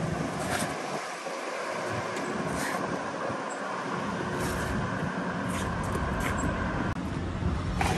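Street traffic ambience: steady noise of vehicles on a town road, with a few brief knocks.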